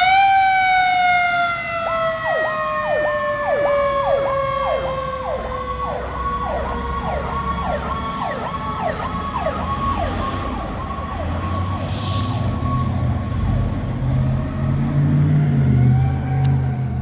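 Fire engine sirens. One wail slowly winds down in pitch while a second siren yelps rapidly, about two cycles a second. Both die away about ten seconds in, leaving the fire truck's low engine rumble.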